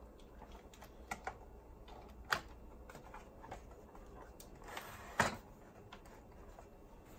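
Scattered light clicks and knocks of circuit boards and plastic parts being handled inside an opened boombox, the sharpest about two seconds in and again about five seconds in.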